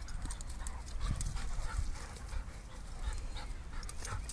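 Two dogs play-fighting, a Doberman and a black long-haired dog, wrestling: short dog vocalizations and breathing mixed with irregular scuffling and knocks.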